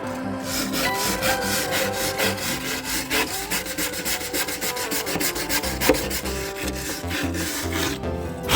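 Rapid rubbing strokes on a wooden swiftlet nest board, about five a second, as mould is cleaned off it, with background music underneath.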